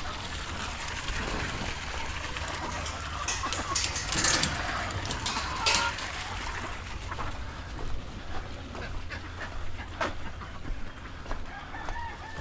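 A flock of chickens and ducks calling and scuffling while they feed, over a steady low rumble.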